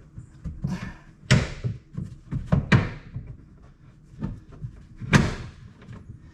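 Plastic inner fender liner being shoved and knocked into place behind a pickup's front bumper: a run of thumps and scrapes, three of them louder, about a second and a half apart, then one more about four seconds in.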